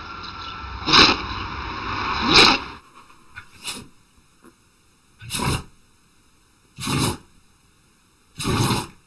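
Dog sneezing over and over, about six short, sharp sneezes roughly a second and a half apart, with a steady background noise that drops away about three seconds in.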